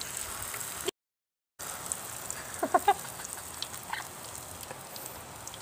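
Corn-kernel batter sizzling in hot fat in a frying pan: a steady fine hiss of frying. The sound drops out completely for about half a second about a second in, and a couple of short voice-like calls sound in the background near the middle.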